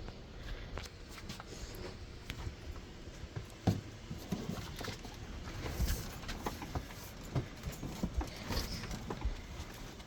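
Scattered knocks, taps and light scrapes from hands and tools working an RV refrigerator loose from its cabinet, with one sharper knock a little before the middle.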